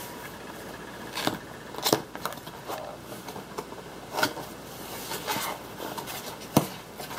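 Packaging being handled while a boxed ramen bowl is unboxed: plastic wrap rustling and a cardboard box being opened, with several sharp crackles and taps, the loudest near the end.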